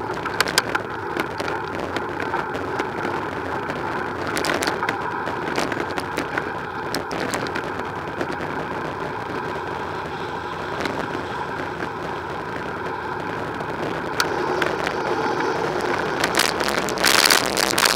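Motor traffic passing on a busy multi-lane road, heard from a bicycle riding in the cycle lane beside it, with frequent short clicks and rattles from the moving bike. A louder burst of noise rises near the end.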